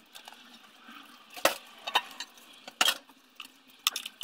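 About five separate sharp metallic clinks of loose transmission pan bolts and hand tools being handled on a workbench.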